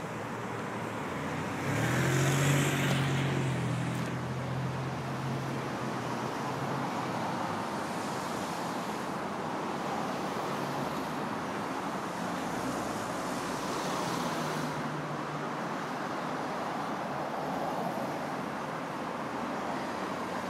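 Steady road traffic noise, with one vehicle passing close about two seconds in, its engine hum briefly standing out above the wash of tyres.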